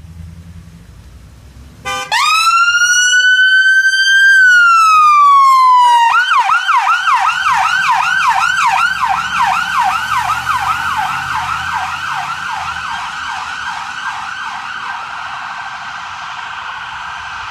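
Ambulance siren switched on about two seconds in. It gives a rising wail that holds, then slides down, and changes to a fast yelp about six seconds in. The yelp grows fainter as the ambulance drives away.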